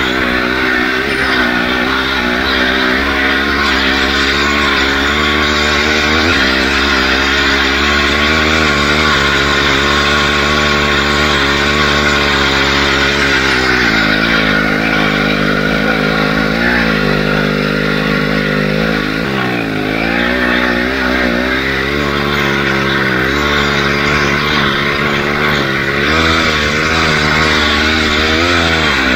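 Chainsaw-derived two-stroke engine of a homemade all-wheel-drive motorcycle running under load, its pitch rising and falling with the throttle. About halfway through it eases off and wavers, then revs back up near the end.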